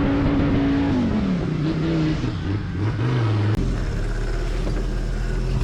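Off-road vehicle engine held at high revs, then dropping off about a second in and settling to a low, steady run.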